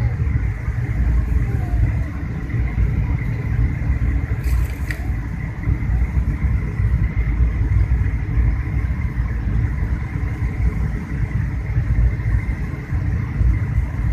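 Airliner cabin noise on the approach to landing: a steady, loud low rumble of engines and airflow with a faint steady whine above it. A single click sounds about four and a half seconds in.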